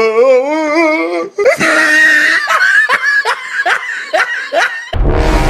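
Laughter: a wavering, drawn-out laughing voice, then a run of quick ha-ha-ha strokes, about three a second. Near the end, music with a heavy bass cuts in.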